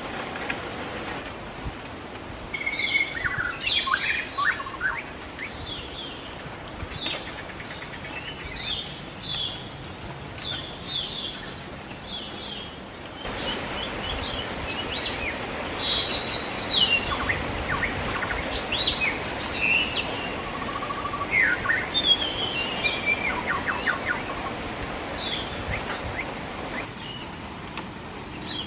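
Forest birds chirping and calling, many short, quick calls one after another, over a steady background hiss.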